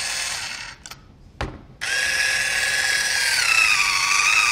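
Electric fish skinner's motor and roller running: a short whirr cuts off under a second in, a single knock follows, then the motor starts again about two seconds in and runs steadily. Its whine dips in pitch in the second half while the roller pulls at a fish fillet.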